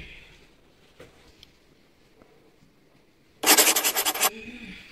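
A short burst of rapid, rough rubbing, under a second long, about three and a half seconds in: a towel scrubbing wet hair dry.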